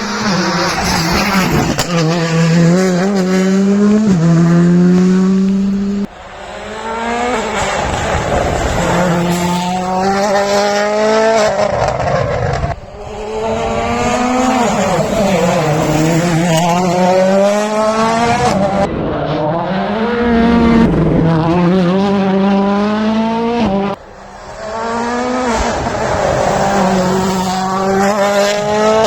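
Rally cars driven flat out, their engines revving hard and climbing in pitch again and again through the gears, with drops at each shift or lift, and some tyre squeal. The sound cuts abruptly three times, as one car's run gives way to another's.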